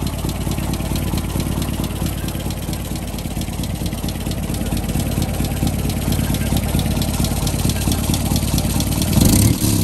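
A Land Rover Series IIa's 2.25-litre four-cylinder petrol engine ticks over evenly at a low, warm idle, heard close to the exhaust manifold. A faint, rhythmic puffing tick runs with the firing: a slight exhaust blow at the manifold-to-downpipe joint, not especially noticeable. Near the end there is a brief, louder low rush.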